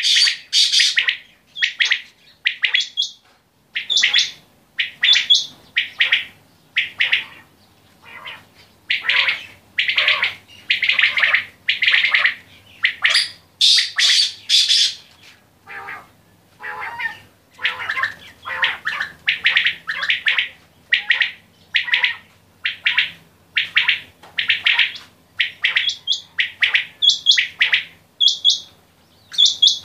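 Several common quails calling, short sharp calls repeated again and again and overlapping one another with hardly a gap.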